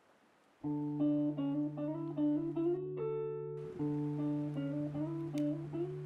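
Background music: a plucked acoustic guitar tune over a held low note, starting about half a second in.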